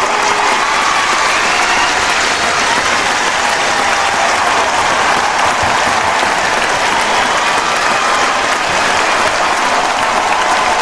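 Large crowd applauding steadily, dense clapping with voices cheering and shouting among it.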